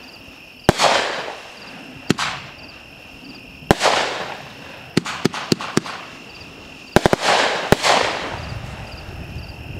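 Consumer aerial fireworks going off: sharp bangs about every second or two, each trailing off in a fading crackling hiss, with a quick run of four bangs about five seconds in and another pair near seven seconds.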